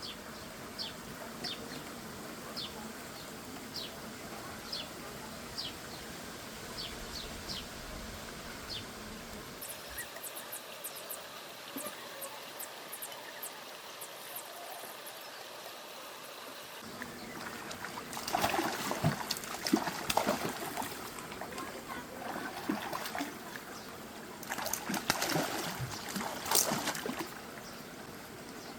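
Water trickling and splashing, with two louder bouts of splashing in the second half. A run of short high chirps repeats about twice a second in the first third.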